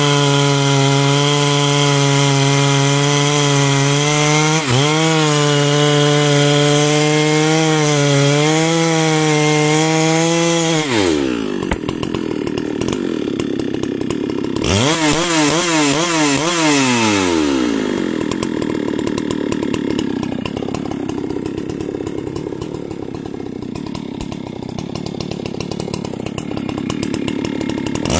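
Muffler-modded big-bore clone chainsaw with a 90 cm bar, running at full throttle through a large hardwood log, its note wavering under load. About eleven seconds in, the throttle is released and the engine drops to idle. It is blipped once, idles low, and revs up again near the end as the next cut begins.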